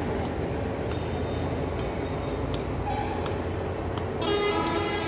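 Steady low outdoor background rumble with a few faint clicks; about four seconds in, a horn blares for about a second and is the loudest sound.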